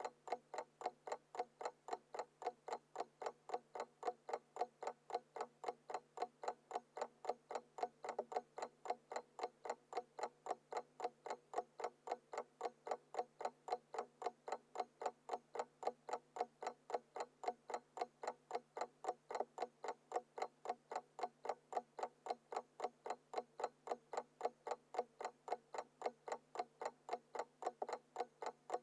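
Small mechanical alarm clock ticking steadily and evenly, about three ticks a second.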